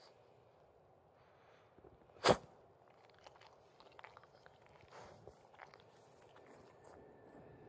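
A Boston Terrier gives one short, sharp snort through its flat nose about two seconds in, then makes a run of small wet mouth clicks and licking sounds.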